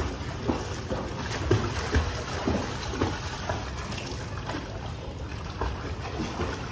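A child kicking and paddling through pool water, splashing in short strokes about twice a second, with a low rumble of wind on the microphone.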